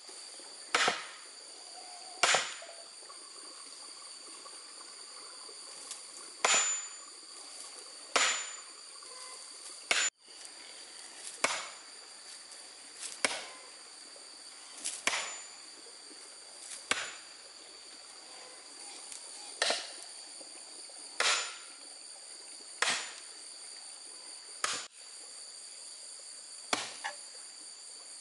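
Sharp knocks, one about every one and a half to two seconds, over a steady high-pitched drone of insects.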